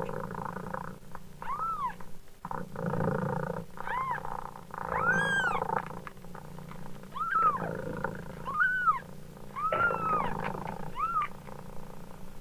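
A mother cat purring steadily while her kitten meows over it, about seven short high meows that each rise and fall in pitch.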